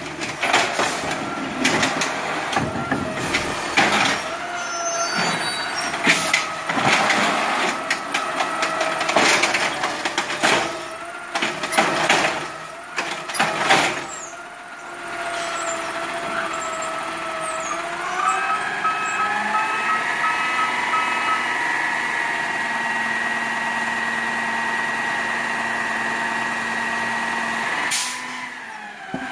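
Automated side-loader garbage truck dumping a wheeled cart: about fourteen seconds of refuse and the cart banging and clattering over the running engine. Then the engine speeds up with a rising whine as the hydraulic arm and packer work, held steady. A short blast of air, like an air-brake release, comes near the end.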